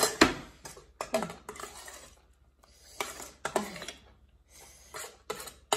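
A metal spoon clinking and scraping against a stainless steel pot as egusi soup is scooped out and tipped onto a plate: a series of sharp metallic knocks, some ringing briefly, about one every second or so.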